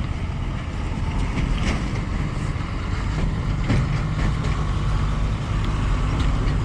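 A heavy vehicle's engine running steadily with road noise, a low rumble that grows a little stronger around the middle.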